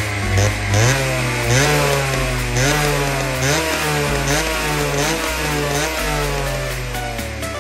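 Honda NSR50/80 mini bike's single-cylinder two-stroke engine revved repeatedly while stationary, the pitch jumping up and falling back with each blip of the throttle, about once a second.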